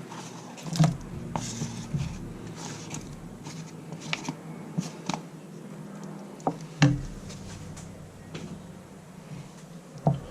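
Thick pea and ham soup being stirred in a casserole dish, with scattered sharp knocks and clinks of a utensil against the pot over a steady low hum.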